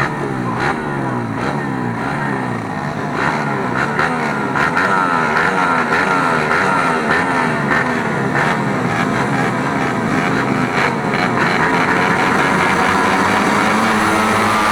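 Several small racing engines revving up and down together, their pitches rising and falling and crossing one another as they lap the track.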